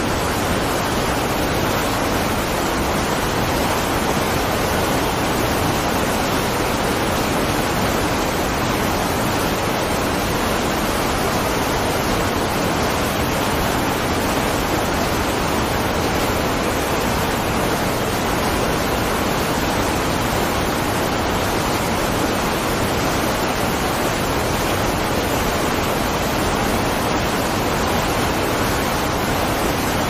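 Wide waterfall pouring over a rock ledge: a steady, unbroken rush of falling water.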